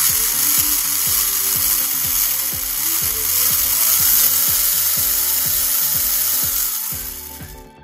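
Four small drone motors spinning a metal-geared gearbox at high speed, giving a loud, steady, high-pitched whirring gear whine that cuts off shortly before the end.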